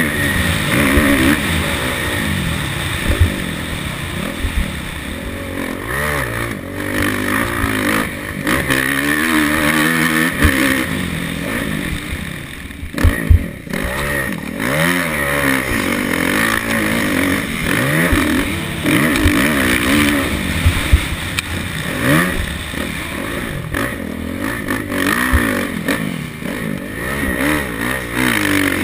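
Kawasaki motocross bike's engine racing on a dirt track, its pitch rising and falling over and over as the rider accelerates, shifts and rolls off the throttle, with a brief dip when it eases off midway. Scattered sharp knocks are mixed in; recorded close up from the rider's helmet camera.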